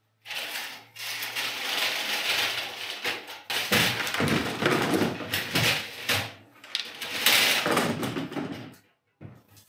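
Old Town Autopilot 120 polyethylene kayak hull scraping and knocking on a concrete garage floor as the kayak is tipped up onto its side. The noise is loudest in the second half, then stops shortly before the end.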